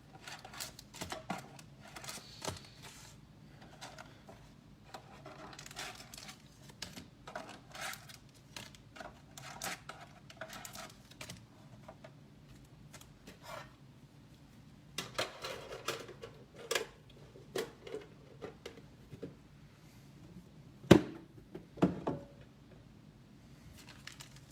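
Hands handling hockey card packs and their packaging: irregular light clicks, taps and crinkles, with a sharp knock late on and a smaller one about a second after.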